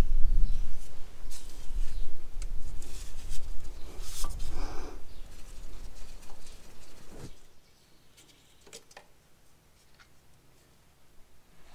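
Screwdriver clicking and scraping as the flathead screws of a magneto cover are backed out, over a low rumble of handling noise. About seven seconds in the rumble stops and only a few light clicks remain.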